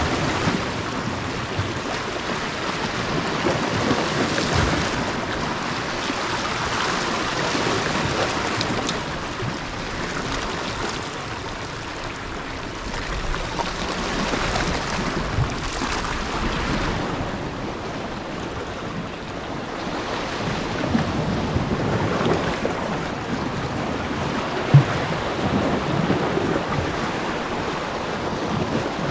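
Small waves washing against rocks, swelling and ebbing every few seconds, with wind on the microphone. A single sharp click a few seconds before the end.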